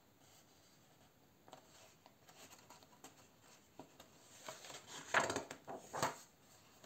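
Paper pages of a paperback colouring book being handled: soft rustles and light brushes of fingers on paper, then a louder rustle and flap as a page is turned about five seconds in.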